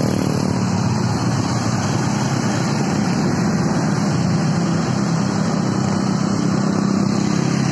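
Motorcycle engine running steadily while riding along a wet road, under a constant rush of road and wind noise.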